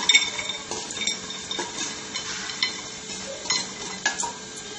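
A utensil scraping and clinking against a pan and a plate as warmed dry coconut slices are scooped out onto the plate. There are about a dozen irregular clinks.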